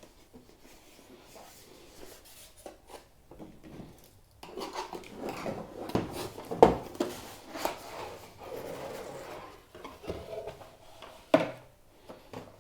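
Cardboard packaging being opened and handled: card sliding and rubbing against card, with a couple of dull knocks, the sharpest near the end.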